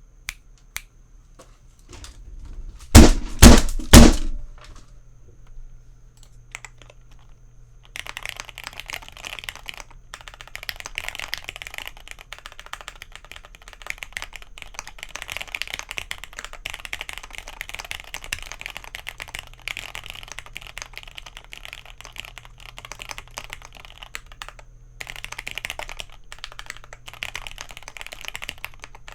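Three loud hits about three seconds in, then steady fast typing on a thocky mechanical keyboard from about eight seconds on, with a brief pause near the end.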